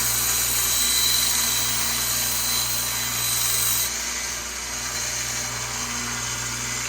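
Electric sharpening grinder running, with a steel knife blade being ground against the abrasive for about the first four seconds, giving a hissing grind with a thin whine. After that the motor hums on alone.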